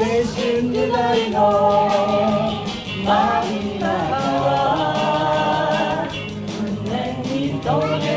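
Karaoke: a woman singing held notes into a microphone over a backing track with a steady beat.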